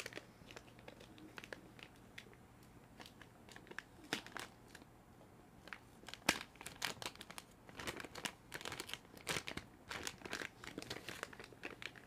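Clear plastic bag crinkling as it is handled around a boxed audio interface. Scattered single crackles at first, then dense crinkling from about halfway in.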